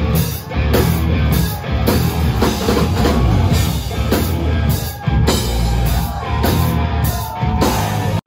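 Live metal band playing loudly: distorted electric guitar over a drum kit hitting hard and steadily.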